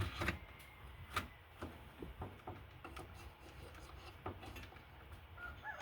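Scattered light clicks and rubbing from hand work on the engine block, and near the end a chicken starts a drawn-out call.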